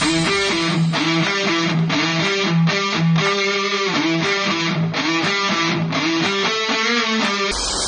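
Background music: an electric guitar strumming chords in a steady rhythm.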